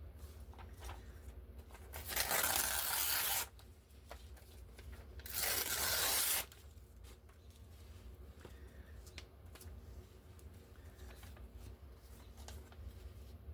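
Paper being torn by hand twice, each tear lasting about a second, the first a little longer, with faint paper handling and small clicks around them.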